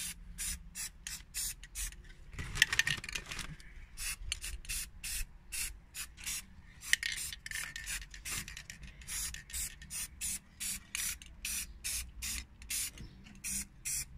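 Aerosol can of triple-thick clear glaze spraying in short hissing bursts, about three a second, coating a 3D-printed part. There is a longer, louder hiss about two and a half seconds in.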